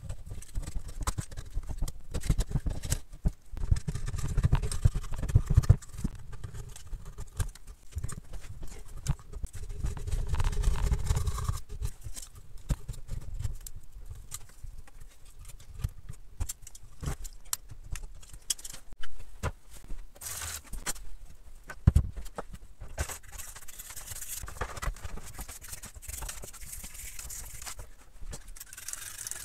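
Hand tools knocking, clicking and prying against a pit bike engine's crankcase half, with heavier thuds twice in the first half. Near the end, steady scraping as old gasket material is scraped off the crankcase face.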